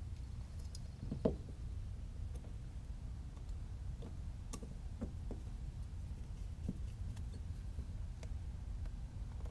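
Scattered light clicks and knocks as a carbon-fibre drone frame and a small screwdriver are handled on a silicone work mat while a motor is screwed down, over a steady low hum; the sharpest knock comes about a second in.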